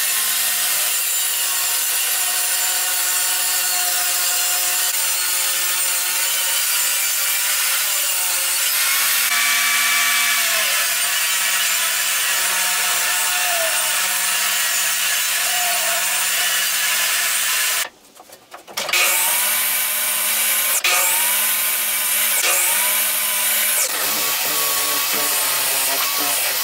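Jobsite table saw running and ripping poplar boards, its motor pitch sagging as each cut loads it. Then a cordless drill bores pocket holes through a pocket-hole jig in several short bursts of about a second each.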